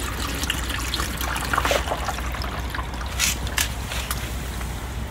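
Water poured from a plastic pitcher into a plastic whitewater kayak's hull, splashing and trickling unevenly.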